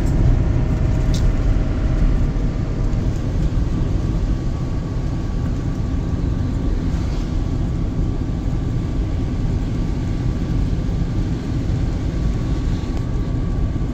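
Steady engine and road noise inside the cab of a 1996 Auto-Trail Scout motorhome driving at road speed.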